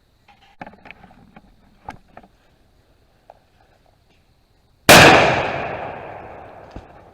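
A single shotgun shot from a 16-gauge Browning A5 Sweet 16, about five seconds in, fading over about two seconds. Faint clicks and rustles come before it.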